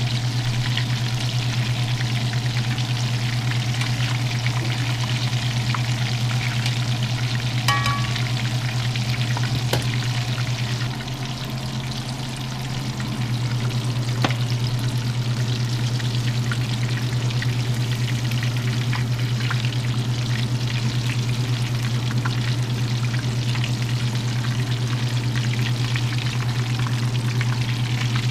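Battered catfish pieces frying in shallow canola oil in a cast-iron skillet: a steady sizzle and crackle of bubbling hot oil as the coating crisps. A couple of light clicks, about 8 and 14 seconds in, come from metal tongs against the pan, over a steady low hum.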